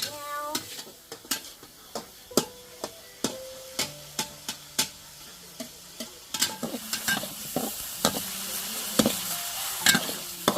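Cooking in a pan: a utensil clinks and knocks against it as food is stirred. From about halfway through, the frying sizzle grows louder.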